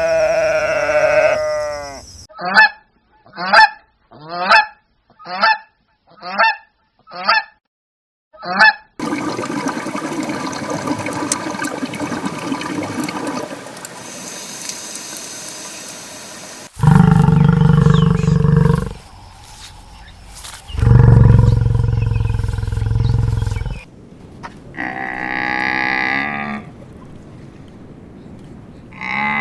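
A run of animal calls: a goose honking seven times in an even rhythm, about once a second. These are followed by other farm animal calls, including two long, deep calls.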